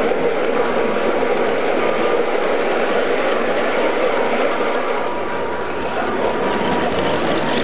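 O scale model train coaches rolling past on garden track, their metal wheels on the rails making a steady rolling noise. It eases slightly a little past halfway as the last coach goes by, then builds again near the end.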